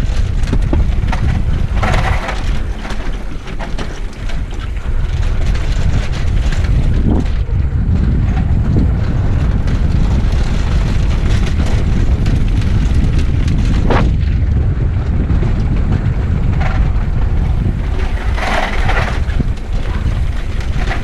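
Wind buffeting the microphone of a mountain bike's handlebar camera, over the steady rumble and rattle of the bike's tyres and frame on cobblestones during a fast descent.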